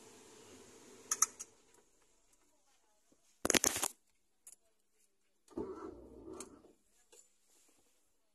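A low hum fades away at the start, leaving a quiet car cabin. Scattered clicks follow, with a short, loud clatter of clicks about three and a half seconds in and a brief muffled rustle a couple of seconds later.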